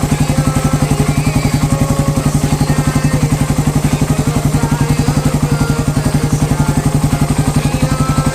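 Suzuki Raider 150 single-cylinder four-stroke engine idling steadily on a big-elbow exhaust with the catalytic converter removed, its exhaust beat coming as rapid, even pulses.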